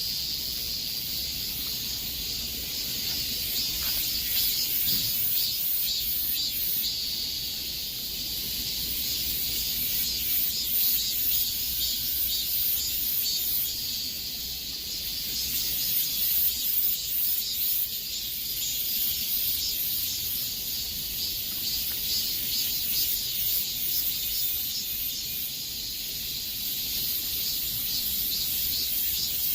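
Cicadas singing in chorus: a continuous high, shrill buzz with rapid pulsing that swells and eases slightly in loudness.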